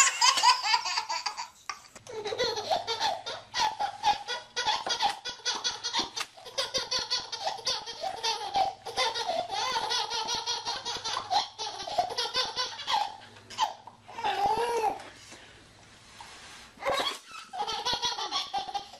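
Babies laughing hard in repeated belly laughs and giggles, with a short lull about three quarters of the way through.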